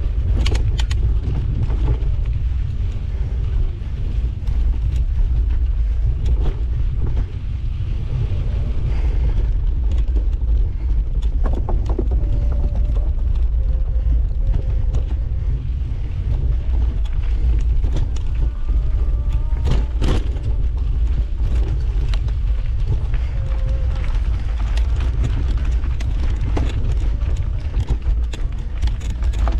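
Wind rumbling over the microphone of a camera riding along on a moving mountain bike, with scattered clicks and knocks from the bike rattling over the trail.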